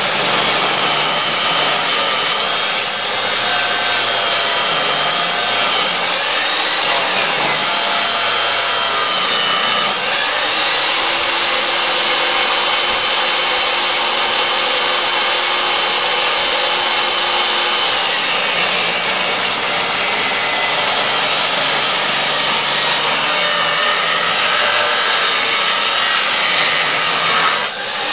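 Portable table saw ripping a long pine board lengthwise along the fence: a steady motor whine over continuous cutting noise, with a brief dip near the end.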